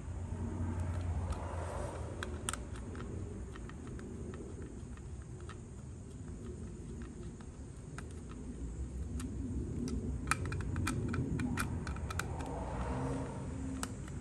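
Irregular small clicks and taps of hands and a screwdriver working a plastic GFCI plug housing and its terminal screws, with a quick run of clicks about ten seconds in.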